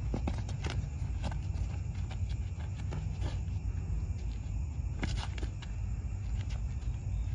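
Scattered short scuffs and taps of feet moving on asphalt during a sparring bout, over a steady low rumble, with crickets chirping faintly.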